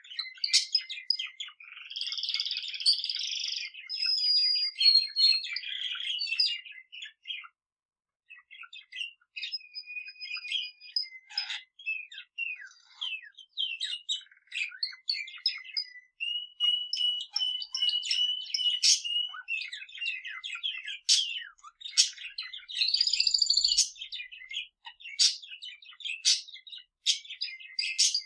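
Pet budgerigar and male canary singing together: a fast, busy stream of chirps, warbles and trills, with a few held whistled notes, and a short pause about eight seconds in.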